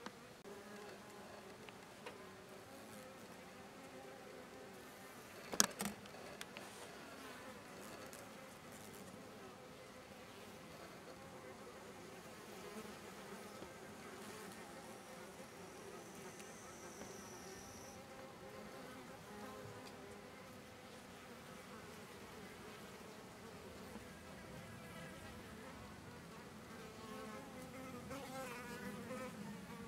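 Faint, wavering buzz of insect wings throughout, a little louder near the end, with one sharp click about five and a half seconds in.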